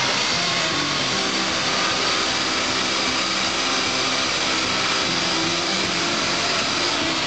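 Backhoe loader's diesel engine running steadily under load as the machine works, heard through a heavy steady hiss.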